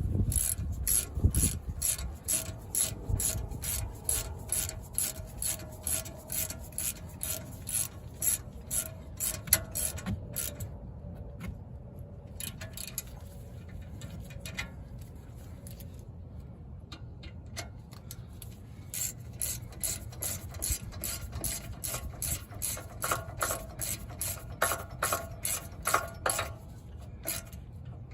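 Ratchet wrench clicking steadily, about three clicks a second, as the brake caliper's pins are driven back in. The clicking stops about ten seconds in and starts again after several seconds.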